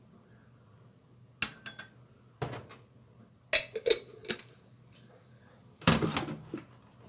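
A metal spoon clinking and knocking against a white bowl of thick soy sauce on a stainless-steel counter, in four short clusters of clicks and knocks, the loudest near the end.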